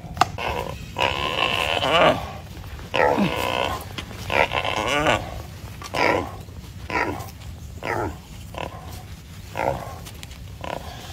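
Wild boar squealing in distress as Komodo dragons bite it: three long squeals of about a second each, then shorter squeals about once a second.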